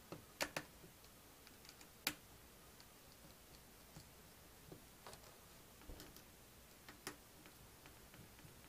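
Faint, scattered light clicks and ticks over near silence: a small Phillips screwdriver working the tiny screws that hold a laptop's LCD panel, with the screws and panel being handled.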